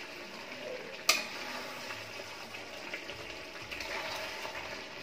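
Chicken curry sizzling in a metal kadai on a high flame as the liquid cooks off, stirred with a ladle that scrapes the pan. One sharp clink of the ladle against the pan about a second in.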